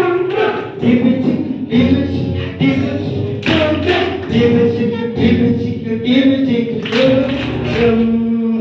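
Group of voices singing a Telugu Christian children's song, with hand claps keeping the beat.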